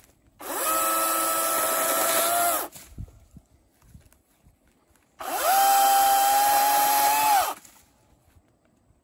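Ego cordless battery chainsaw with a 16-inch bar, run in two bursts of about two seconds each while cutting branches from a small tree. Each burst spins up quickly to a steady high whine and winds down when the trigger is released.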